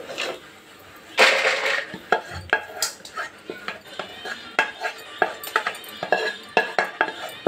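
Fried cashews and almonds sliding out of a non-stick kadhai into a bowl in a loud rustling rush about a second in, followed by a run of sharp clicks and scrapes of the spatula against the pan as the last pieces are scraped out.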